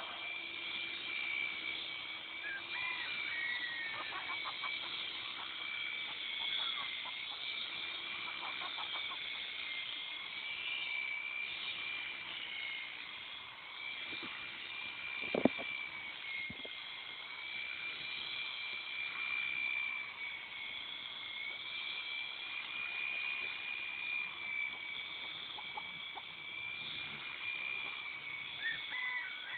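Electric sheep-shearing handpiece running as it cuts through a sheep's fleece: a steady high whine that wavers slightly in pitch. A single sharp knock about halfway through.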